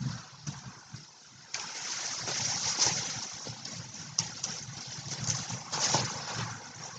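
Dry bamboo leaf litter rustling and crunching as it is stepped on and stirred. It starts abruptly about a second and a half in and carries scattered sharp clicks and crackles.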